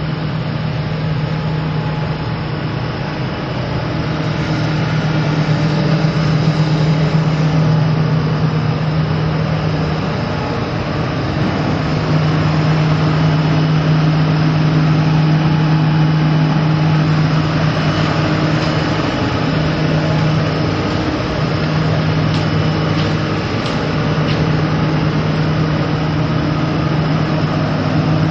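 Isuzu six-cylinder turbo diesel engine of a 2008 Link-Belt 330LX excavator running steadily with a deep, even hum, its level swelling and easing a little at times.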